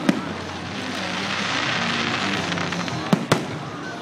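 Aerial fireworks shells bursting overhead: one sharp bang just after the start and two more in quick succession a little after three seconds in, over a steady background hiss.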